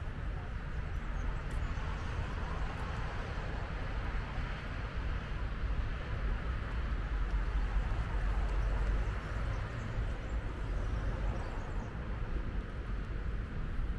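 City street ambience: steady road-traffic noise with a low rumble, which swells for a couple of seconds about halfway through.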